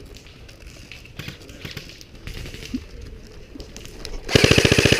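Faint rustling and scattered clicks, then near the end a short full-auto burst from an airsoft electric gun: a rapid, even rattle lasting under a second.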